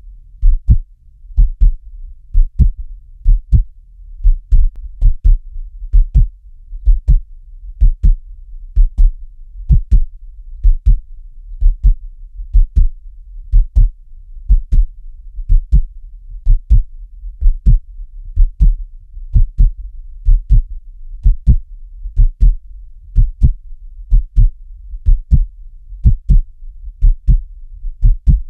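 Heartbeat, a steady lub-dub of paired low thumps repeating about once a second, over a faint low rumble.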